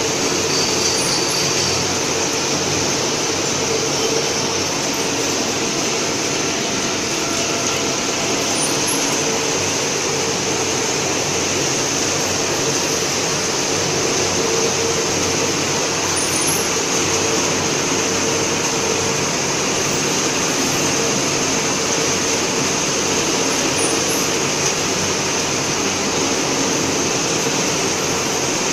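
Steady machinery noise of a running hot-air caramel popcorn production line, conveyors and popping equipment in operation: a constant hum with a high hiss over it.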